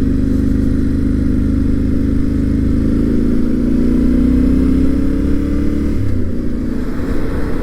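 Yamaha Ténéré 700's 689 cc parallel-twin engine pulling steadily on a dirt road, its revs climbing slowly, then dropping suddenly about six seconds in and running on at a lower pitch.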